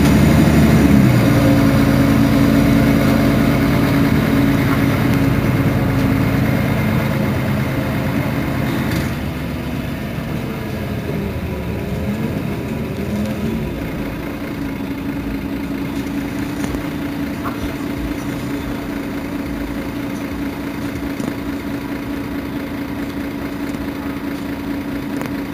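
Mercedes-Benz Citaro Facelift city bus engine idling while the bus stands still, a steady low hum that eases off over the first ten seconds or so and then holds even.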